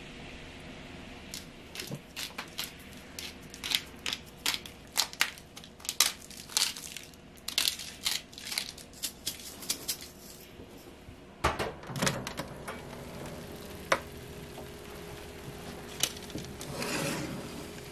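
A salt grinder crunching and clicking in quick irregular bursts for several seconds. Later a clunk, and a metal baking tray slides into an oven with a scrape near the end, over a steady low hum.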